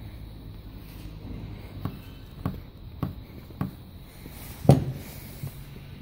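Handling noises from a disassembled mechanical fuel pump in a gloved hand: four soft knocks evenly spaced a little over half a second apart, then a louder knock about three-quarters of the way through, over a low steady hum.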